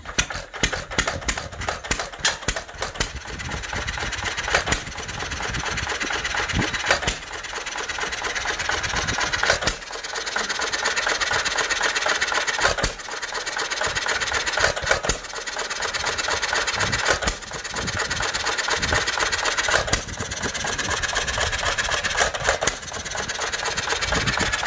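1925 John Deere Type E hit-and-miss stationary gas engine starting and running. A quick run of sharp knocks in the first few seconds gives way to a single loud firing about every two and a half seconds, with steady light clatter as the flywheels coast between firings.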